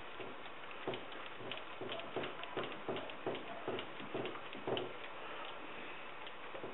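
Paintbrush dabbing resin into wet fiberglass cloth in a mold, laminating the first layer: a run of quick, even dabs about three a second that stops about five seconds in.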